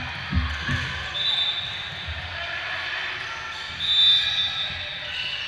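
Indoor volleyball play on a hardwood gym court: a few low thuds in the first second, then short high-pitched squeaks about a second in and again, loudest, about four seconds in, over echoing chatter from the sideline crowd.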